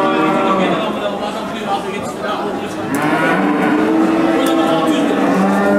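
Cattle mooing: several long, drawn-out calls one after another, one falling in pitch near the start and a long steady one in the middle, over a murmur of voices.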